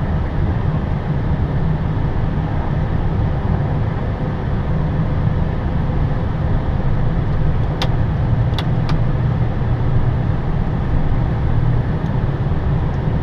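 Steady low rumble inside an Airbus A320's cockpit as the airliner rolls along the runway after landing, with three short sharp clicks about eight to nine seconds in.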